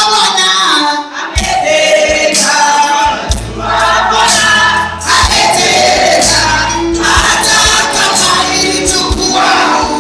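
Worship song with many voices singing together over a band. A steady bass line and drum beat come in about a second and a half in.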